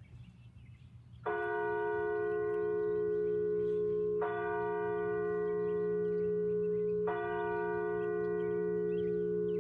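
Church bell tolling: three strokes about three seconds apart, the first a little over a second in, each ringing on into the next. The bell is rung to call people to a Sunday service.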